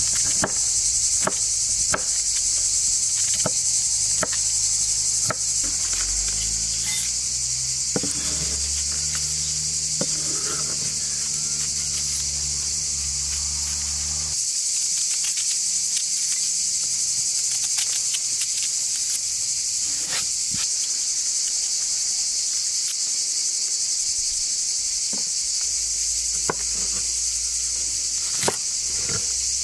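A steady, high-pitched chorus of insects, with sharp knife clicks as a large kitchen knife cuts into an onion held in the hand, and knife strikes on a wooden chopping board near the end.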